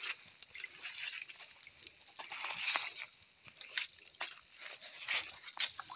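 Water sloshing and dripping off a collapsible mesh fish trap as it is lifted out of a shallow stream pool, with many small, irregular drips and splashes.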